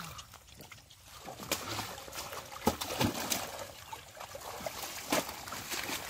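Shallow muddy water sloshing and trickling as hands grope through it and legs wade, broken by a few irregular sharper splashes.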